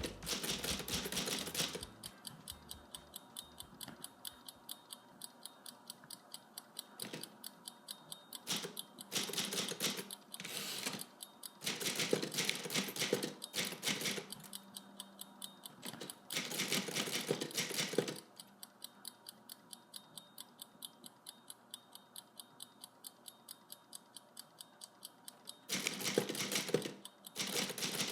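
Vintage typewriter being typed on: a steady run of key strikes at about three to four a second, with several louder stretches.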